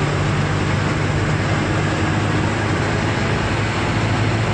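Diesel truck engine running steadily at road speed with tyre and road noise, heard from inside the cab.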